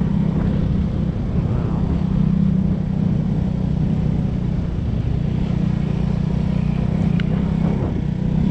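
Enduro motorcycle engine running steadily while the bike is ridden along a dirt road.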